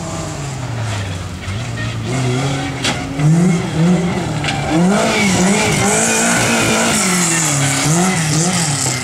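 Rally car engine revving hard, its pitch rising and falling several times in quick succession, with tyre noise and a few sharp pops or cracks.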